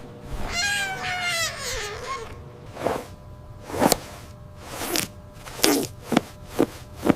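A high, wavering crying voice falling in pitch for about a second and a half, followed by about seven short, sharp knocks spread over the next four seconds.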